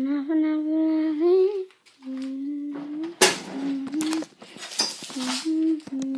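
A child humming a long, wavering tune, with a few short scraping noises from about three seconds in.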